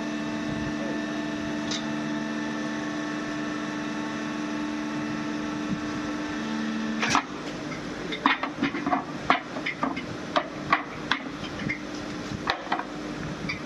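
Hydraulic press for sawdust pallet blocks, its pump unit humming steadily with several fixed tones. About seven seconds in the hum changes and a sharp knock is followed by a run of irregular metallic knocks and clanks.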